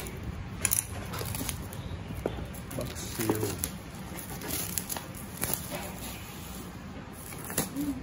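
Scattered light clicks and crinkling rustles of a keyboard's cardboard box being handled while its plastic shrink wrap is cut and opened.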